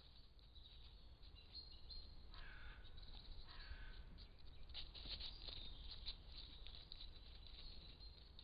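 Two faint, harsh animal calls, each about half a second long, a little over two seconds in and again a second later, over a low rumble and scattered faint ticks.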